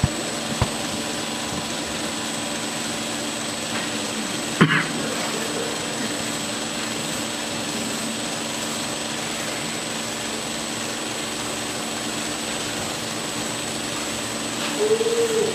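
Belt sander running steadily while a straight razor's steel is ground edge-down against the belt over the contact wheel, thinning the edge until a foil burr forms. A sharp knock sounds a little under five seconds in.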